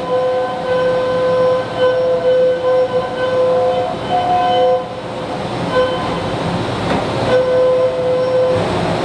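Makino 5-axis CNC machining center cutting metal under flood coolant. A steady, high-pitched cutting tone with overtones breaks off and returns, shifting pitch now and then as the tool engages, over a constant hiss of coolant spray.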